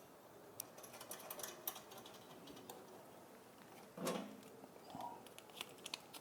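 Faint clicks and light taps of a screw and metal parts being handled while the screw is fitted into the embroidery machine stand, with one louder knock about four seconds in.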